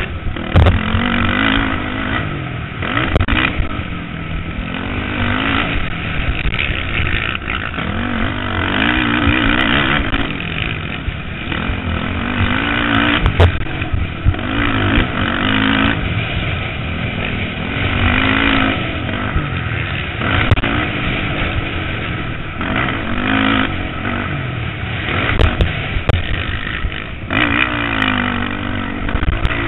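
Motocross dirt bike engine heard from the rider's helmet camera, revving up and dropping back again and again through the gears as it races over the track, with occasional sharp knocks.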